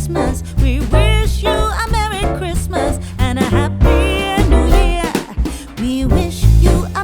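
Music with a singing voice over a heavy, pulsing bass line.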